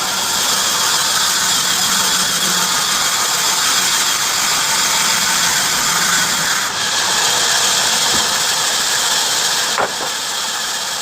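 Heavy-duty bandsaw running through wood: a loud, steady noise that dips briefly about seven and again about ten seconds in.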